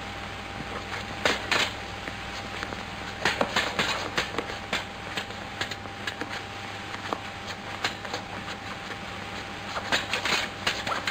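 Sabre blades clashing in quick, irregular flurries of sharp clicks, with pauses between the exchanges, over the steady hum and hiss of an old film soundtrack.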